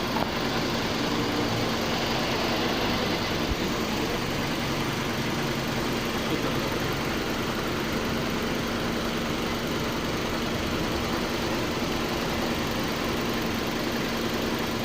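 Nissan Almera engine idling with the air conditioning running, a steady hum with a constant low tone. This is the noise that comes whenever the aircon is switched on, which the mechanic suspects is a loose bearing in the aircon system.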